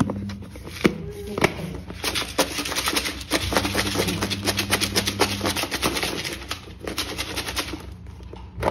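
Bhel puri mix of puffed rice, sev and peanuts rattling inside a lidded plastic bowl as it is shaken by hand to mix it: a rapid stream of dry clicks and taps that starts about a second in and stops shortly before the end.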